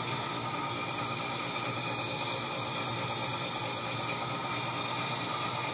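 Small electric motor running on very low voltage from a variac, about 17 volts and under 10 watts: a steady low hum with an even hiss over it.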